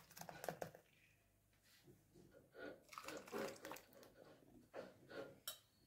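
Faint, scattered kitchen handling sounds: a few soft scrapes and knocks, with one sharp click near the end.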